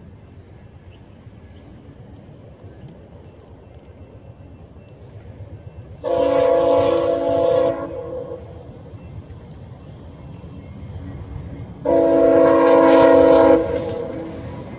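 A horn sounding two long blasts of about two seconds each, several seconds apart, each a chord of several steady tones at once, over a steady low rumble.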